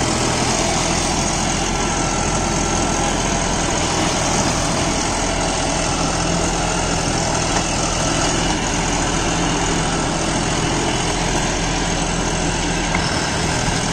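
John Deere 5405 CRDI tractor's common-rail diesel engine running steadily under load in creeper gear, driving a Shaktiman Tusker rotary tiller through the PTO as it mulches banana stumps. The engine and tiller make one even, unbroken machine noise.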